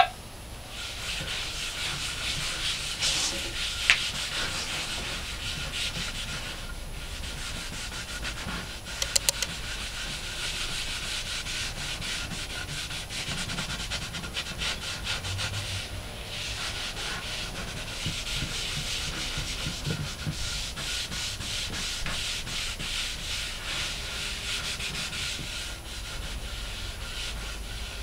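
A hand-held pad rubbing back and forth over a poplar-and-alder wooden cutting board as finishing oil is worked in, a dry scratchy sanding sound in quick strokes with a few short pauses. A few light clicks about nine seconds in.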